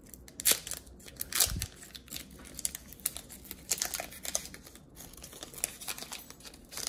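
Foil booster-pack wrapper crinkling and being torn open by hand: a run of sharp crackles, with louder rips about half a second and a second and a half in.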